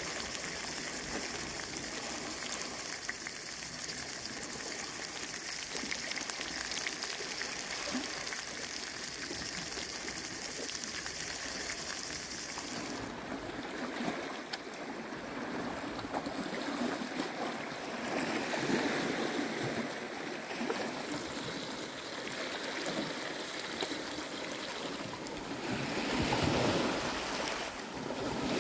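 Sea waves washing and lapping against a rocky shore, swelling and falling in slow surges in the second half. A steady high hiss lies over the water sound in the first half and cuts off abruptly near the middle.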